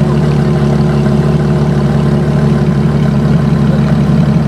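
Ferrari LaFerrari Aperta's naturally aspirated V12 idling steadily, a deep even exhaust note with no revs.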